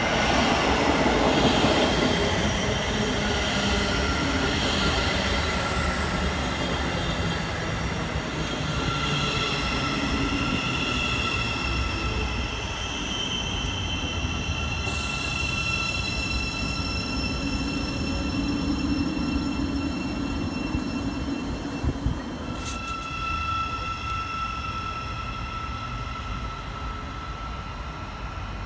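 Thameslink Class 700 electric multiple unit running alongside the platform close by: a rumble with several steady high-pitched whines from its motors and brakes, loudest in the first couple of seconds and easing off after.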